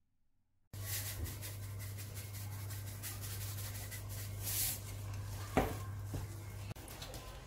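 After a moment of near silence, a hand tosses and mixes shredded raw potato and sliced red onion in a bowl: a run of soft scratchy rustles and one sharp knock about three-quarters through. A steady low hum sits underneath and stops near the end.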